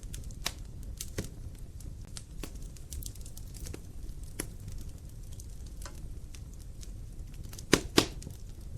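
Wood logs burning in a fireplace, crackling: scattered sharp pops over a low, steady rumble of flame, with two loud pops close together near the end.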